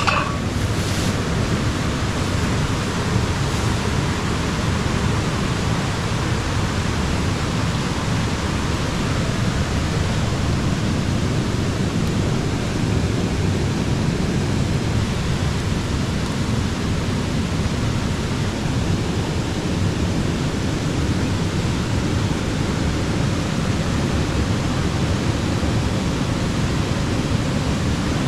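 River water rushing over rocks: a loud, steady, even roar of flowing water that does not change.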